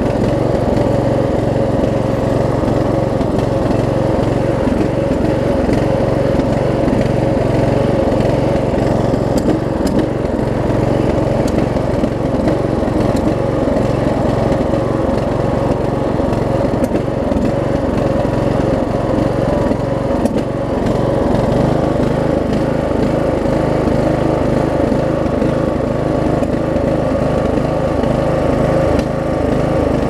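Craftsman LT1000 riding mower's engine running steadily under way.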